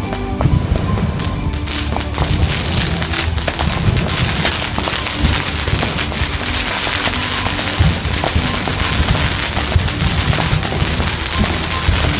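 Stage pyrotechnic fountains hissing and crackling, with flame projectors shooting fireballs, over loud music with a heavy bass beat. The spark hiss sets in about half a second in.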